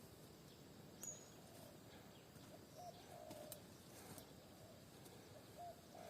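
A dove cooing faintly, a short note followed by a longer coo, repeated about every two and a half seconds, with a few soft clicks between.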